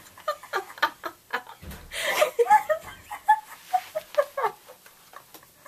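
Women laughing hard in short, high-pitched bursts, without words.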